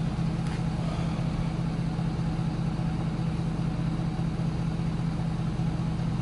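A steady low engine drone, with one faint click about half a second in.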